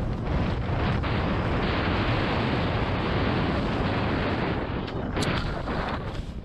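Skis sliding and crunching through a thick layer of dry fallen leaves, a steady rushing noise with heavy wind buffeting on the action camera's microphone. It eases briefly about five seconds in.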